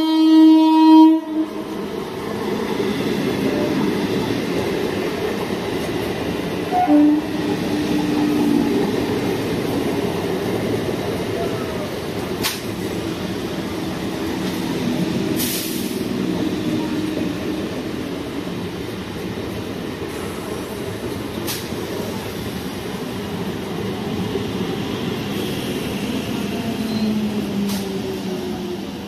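A train horn blares at the start and cuts off about a second in. A passing train then keeps up a steady rumble of wheels on the rails, with a few sharp clicks from the track.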